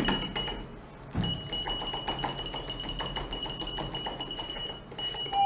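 Lift floor button pressed over and over in quick succession: rapid clicking, with a steady high beep from about a second in until near the end.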